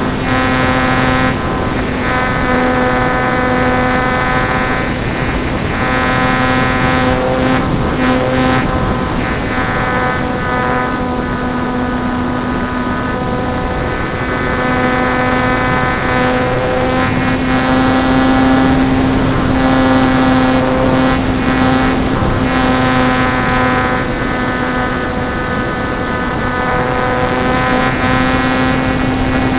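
Electric motor and propeller of a ParkZone Stinson Reliant RC plane running in flight, heard from a camera on the plane: a steady buzzing whine that wavers slightly in pitch, over a rush of noise.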